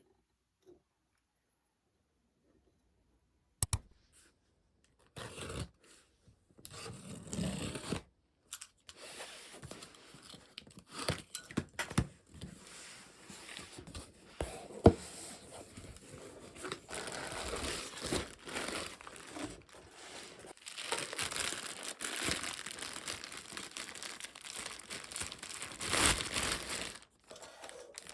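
Wrapping being torn open and crinkled by hand, an irregular rustle that starts after a few seconds of quiet, with a few sharp clicks along the way.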